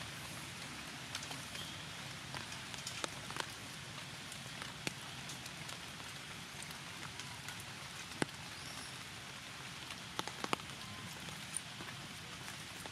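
Steady light rain falling on the forest floor and leaves, with scattered sharp ticks of drops, the sharpest about eight seconds in and a few more around ten seconds.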